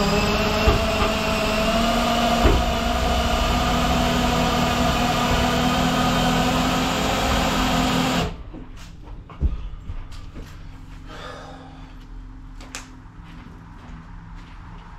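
Electric drill running at a steady speed for about eight seconds, then stopping abruptly, followed by a few light clicks and taps.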